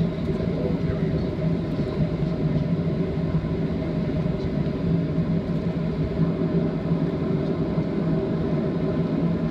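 Boeing 737-700's CFM56 jet engines running with a steady hum and a low drone, heard from inside the passenger cabin.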